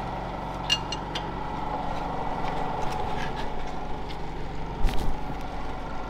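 Wrench clinking on the steel bolts of a manure auger's hanger plate: a few sharp metal clicks, with the loudest cluster about five seconds in, over a steady machine hum.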